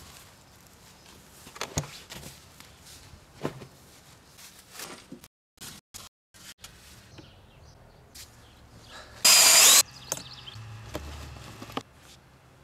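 Shovel digging a hole in garden soil, with occasional faint knocks and scrapes. The sound drops out briefly near the middle. A little over two-thirds of the way in comes one loud, harsh burst of noise about half a second long.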